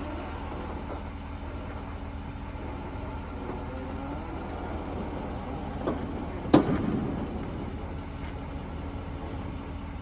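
Steady low engine hum throughout. About six and a half seconds in comes one sharp metallic thump as the tilting hood of a Kenworth semi truck is pushed shut.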